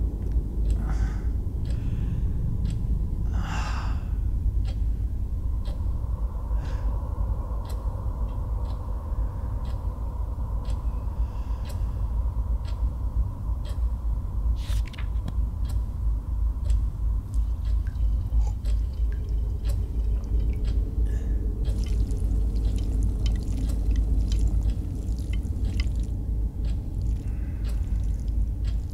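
A steady low rumble with scattered clicks and crackles, a faint thin tone above it for a while, and a brighter hiss joining about two-thirds of the way through.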